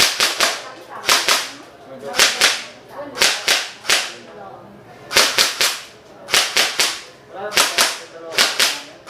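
Battery-powered M4 airsoft electric rifle firing on semi-auto: sharp cracking shots in quick pairs and triplets, a cluster about every second, each shot ringing briefly.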